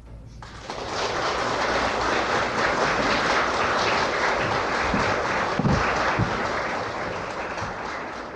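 Audience applauding at the end of a live piano performance. The clapping swells within the first second, holds steady, and thins near the end, with a few low thuds about two-thirds of the way through.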